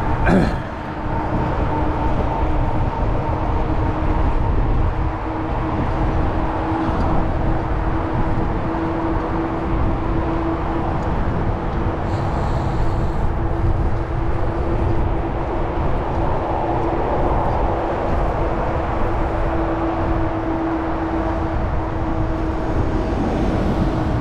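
Steady road rumble and wind noise with a constant low hum, typical of vehicle traffic heard while riding, with a short sharp sound right at the start.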